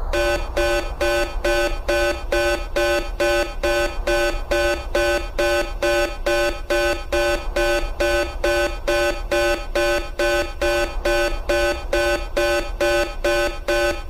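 Background electronic music: a repeating synth pattern of short, evenly spaced beeping notes, about four a second, alternating between a few fixed pitches.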